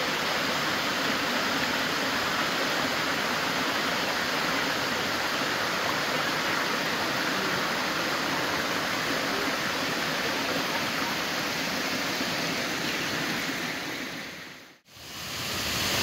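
Waterfall's steady rush of falling water. It fades out to a brief silence near the end and then comes back.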